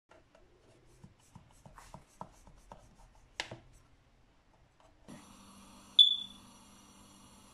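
Knife cutting through a tray of set gur papdi, a run of light scrapes and clicks against the metal tin, the sharpest about three and a half seconds in. Then a steady hum starts, and about six seconds in a single sharp metallic clink rings out against the wok.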